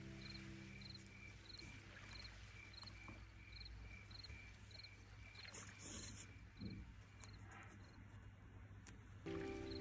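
Faint cricket chirping, regular, a little under two chirps a second, over a low steady hum. Soft background music fades out at the start and comes back near the end.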